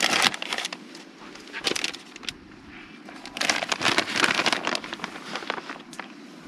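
Plastic bag of shredded cheese crinkling as it is handled and shaken, in several bursts with the loudest about three to five seconds in, over the steady low rush of the lit camp stove burner.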